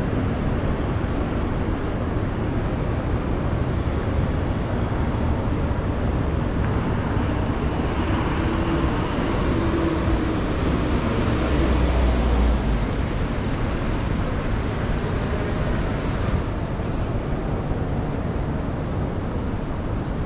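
City street traffic: the steady noise of cars on the road, with one vehicle passing close and loudest about twelve seconds in.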